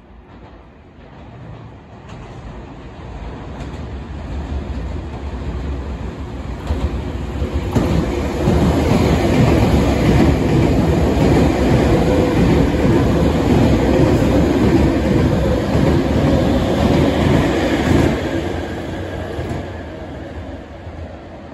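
Nankai electric commuter train passing through the station without stopping. Its sound builds as it approaches, stays loud with wheels clattering over the rail joints while the cars run past, then fades as it pulls away.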